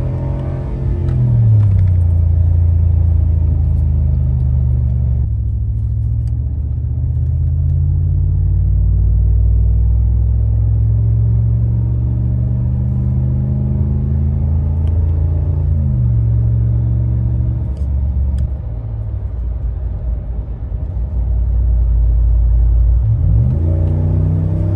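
Heard from inside the cab with the windows up: a 5.7L Hemi V8 exhaust through a Flowmaster Super 10 muffler with the first resonator deleted, giving a low, loud drone while the truck is shifted manually through the gears at low to moderate revs, the pitch dropping at each upshift. Near the end it goes to wide-open throttle and the exhaust note climbs sharply in pitch as the revs rise.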